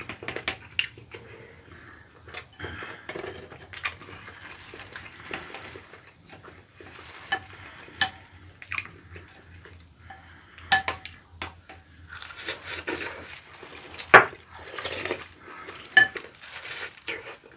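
A spoon stirring and clinking in a glass bowl of chicken porridge, with scattered sharp clinks of utensils on glass and dishes. The loudest clink comes about fourteen seconds in.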